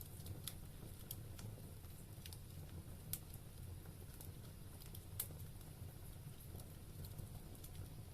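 Wood fire burning in a fireplace, crackling with irregular sharp pops over a low steady rumble; two louder pops about 3 and 5 seconds in.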